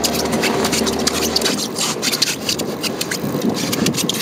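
Rasping, rubbing noise with irregular sharp clicks from a Shimano Stella SW 10000XG spinning reel and heavy line under load as a giant trevally is pumped in. A low hum stops about a second and a half in.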